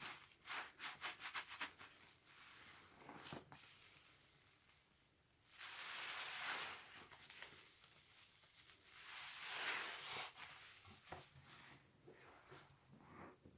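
A sponge soaked in laundry washing liquid being squeezed, its suds crackling and squelching. A quick run of crackles comes near the start, then two longer fizzing squeezes.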